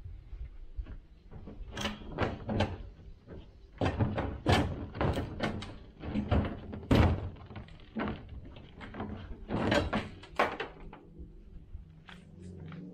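A series of irregular knocks and thuds of hard objects, a dozen or more, loudest about seven seconds in.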